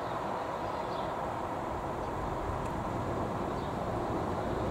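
Boeing 787-9 Dreamliner's jet engines on approach with gear down: a steady rumble that grows slightly louder as the airliner comes overhead.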